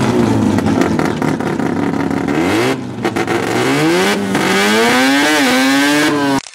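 Rotary engine of a Mazda hatchback revving hard while stationary: the pitch climbs about two seconds in, drops briefly near three seconds, then rises again and holds high before the sound cuts off abruptly near the end.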